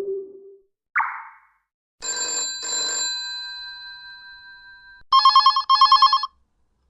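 i-mobile i-style 5 mobile phone tones played one after another: a short low tone, a brief higher blip, then a two-strike chime that rings on for about three seconds. Near the end comes a fast trilling ring like an old telephone bell, in two quick bursts.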